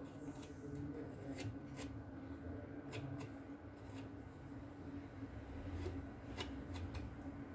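Small metal spatula scraping and pressing wood filler into woodworm holes in a wooden chair leg: soft scrapes and light clicks at irregular moments, over a faint steady hum.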